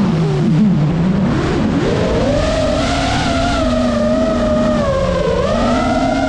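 FPV freestyle drone's brushless motors and propellers whining over a rush of air. The pitch sits low and wavers for the first two seconds as the throttle is eased, climbs and holds, then dips about five seconds in before rising again as the throttle comes back up.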